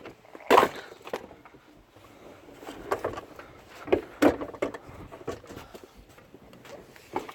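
Irregular knocks and clunks of car interior parts being handled, as a loosened centre console is lifted out, with the loudest knock about half a second in.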